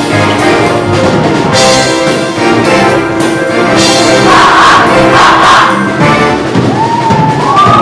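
Show choir singing over brass-heavy backing music. Near the end, high gliding whoops start to rise over it.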